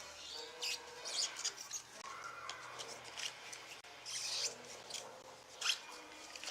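A trading-card pack being torn open and the cards slid out and handled: irregular crinkling and rustling, with a few sharp crackles.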